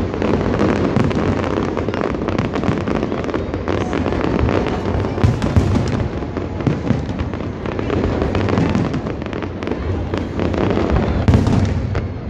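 Aerial fireworks display: shells bursting one after another in a dense, overlapping run of booms and crackles.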